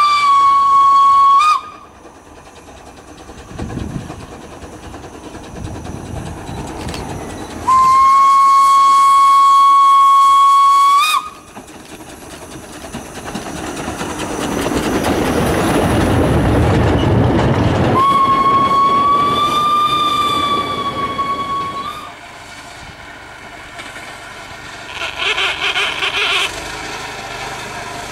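Narrow-gauge steam locomotive's whistle sounding three long, steady blasts: one ending about a second and a half in, another of about three seconds around eight seconds in, a third of about four seconds around eighteen seconds in. Between the second and third blasts the locomotive's exhaust and wheels grow loud as it passes close by with its goods train. A short burst of another sound comes near the end.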